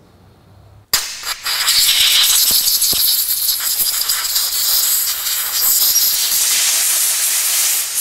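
Compressed-air blow gun hissing loudly as it blasts air over and through carburetor castings to dry them after cleaning. The hiss starts abruptly about a second in, with a few light clicks in the first couple of seconds.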